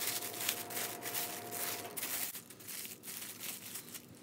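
Press'n Seal plastic wrap crinkling and rustling as it is laid over a foil pie tin and pressed down onto it. The rustling is busiest for about the first two seconds, then thins to lighter, scattered rustles.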